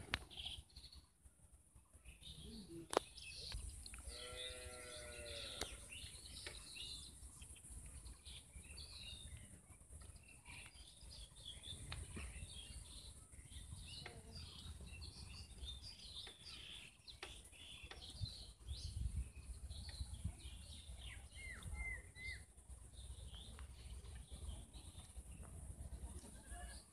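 Faint outdoor ambience of small birds chirping and twittering over a steady high insect drone. About four seconds in, a goat bleats once, a quavering call lasting a little under two seconds, with a single sharp click just before it.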